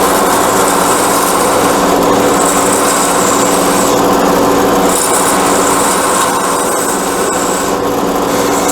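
Wood lathe running with a steady hum while a turning tool cuts into the spinning spindle, a high hiss coming and going in spells of about a second as the tool bites.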